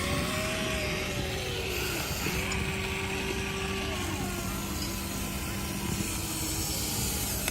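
Small electric motors of a remote-controlled model excavator whining as it digs sand, the whine rising and falling in pitch as the arm and bucket move, over a steady hiss.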